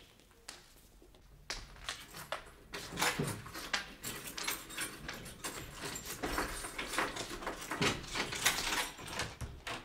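Drama sound effects of a door being opened and a group of people bursting into a room and searching it: an irregular clatter of knocks and bangs that grows busier from about a second and a half in.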